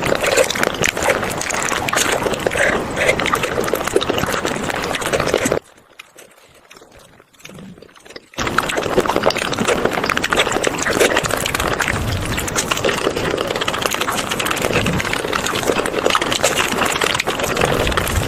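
Close-miked wet eating sounds, dense clicky chewing and slurping of food, stopping for about three seconds partway through before resuming.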